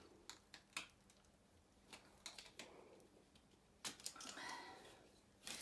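Faint, scattered small clicks and taps of hard plastic: the green plastic ribbon cartridge and its two brackets being handled and fitted together.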